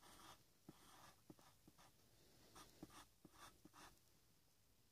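Faint scratching of a pencil sketching on paper in short strokes, with a few light taps of the lead.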